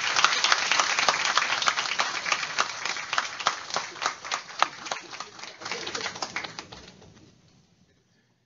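Audience applauding, fading out about seven seconds in.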